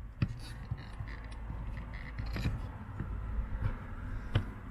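Handling noises of rubber and aluminium car pedal covers in the footwell: a few sharp knocks and light scrapes, the loudest knock near the end, over a low rumble.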